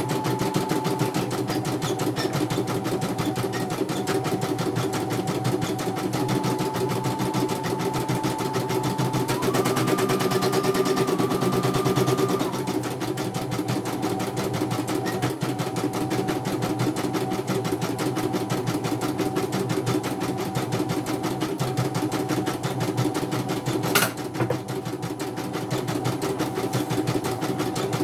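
A CNY portable computerized embroidery machine stitching a design, with a rapid, even run of needle strokes. A motor whine over it steps up and down in pitch as the hoop moves. Late on there is a single sharp click.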